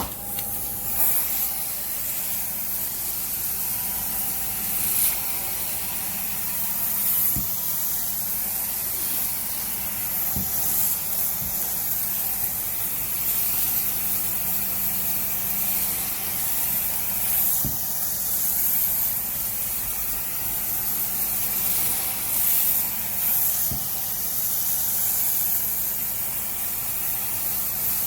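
Hot-water carpet extraction: the cleaning wand hisses steadily as it sprays and sucks, swelling with each stroke over the constant hum of the cleaning machine.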